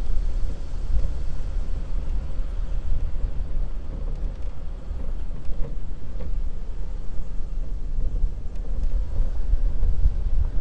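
Jeep Grand Cherokee CRD diesel SUV driving slowly along a dirt trail: a steady low rumble of engine and tyres on dirt, with a couple of faint knocks around the middle.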